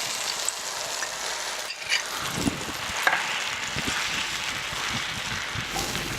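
Wet spice paste sizzling in hot sesame oil in a kadai while it is stirred, with a few light knocks of the spoon against the pan.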